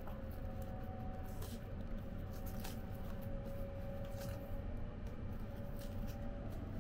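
Steady low rumble of a 285-series sleeper train running, with a faint steady hum. Over it, a few soft rustles of paper and string as the wrapping is pulled off a boxed bento.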